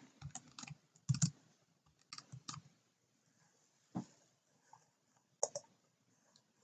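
Sparse computer keyboard and mouse clicks in small groups, the loudest a pair about a second in.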